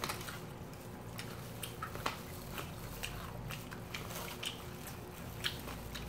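People biting and chewing crispy fried chicken with a wasabi-powder coating, with irregular crisp crunches about every half second.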